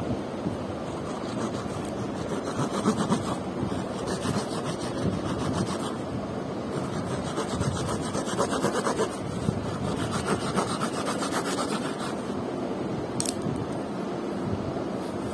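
Cardboard rubbing and scraping as it is handled, in several short spells of fast scratchy strokes, with one sharp click near the end, over a steady hiss.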